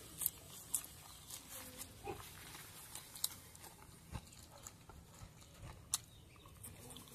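Close-up chewing of a person eating noodles with raw leaves and cucumber: soft wet mouth sounds with several sharp crunchy clicks spread through.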